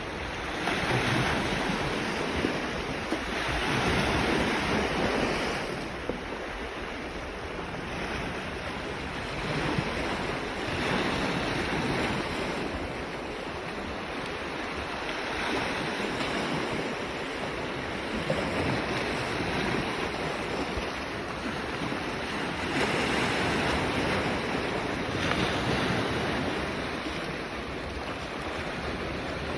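Sea waves breaking and washing ashore, the surf swelling and easing every few seconds, with wind buffeting the microphone.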